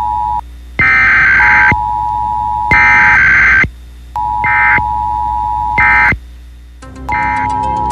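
Emergency Alert System-style tones: short buzzing data bursts alternate with a steady two-tone attention signal, repeating several times. Music comes in near the end.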